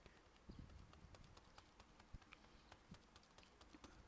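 Faint, irregular soft taps of a sponge dauber pouncing white acrylic paint through a stencil onto a canvas bag, a few dabs a second, over a low room hum.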